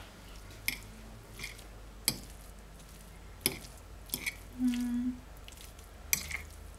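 A fork clinking and scraping against a plate while stirring chopped boiled eggs into pasta and cottage cheese: a handful of sharp, separate clicks. A short low hum comes about two-thirds of the way through.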